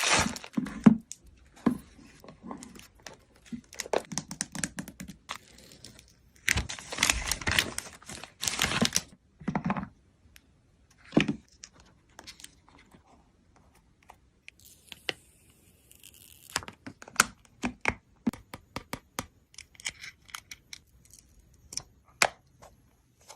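iPhone 12 Pro Max box and packaging being opened by hand: plastic wrap tearing and crinkling and cardboard rubbing in the first half, then a run of sharp clicks and light taps as the parts are handled.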